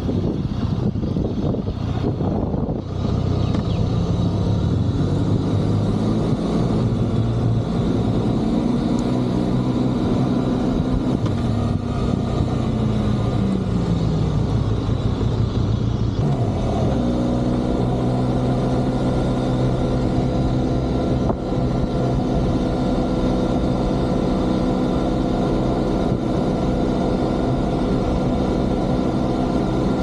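Benelli 502C motorcycle's parallel-twin engine running under way. Its pitch climbs steadily about a fifth of the way in, falls back around the middle, then holds steady for the second half.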